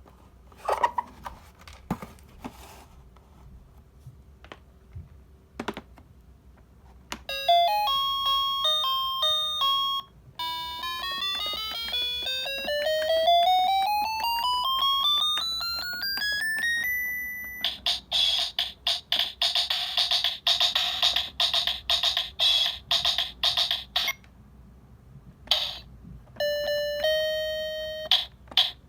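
Cheap toy electronic keyboard: a few clicks of its buttons, then buzzy beeping notes, a long run of notes stepping steadily higher over about six seconds, and a stretch of rapid electronic drum-like hits. A few more beeps follow near the end.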